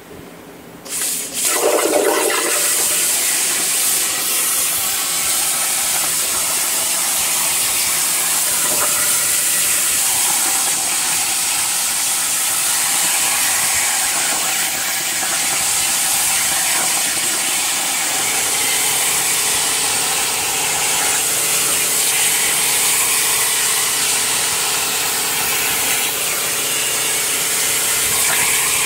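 CNC plasma cutting torch striking its arc about a second in with a brief louder burst, then cutting steel sheet with a loud, steady hiss.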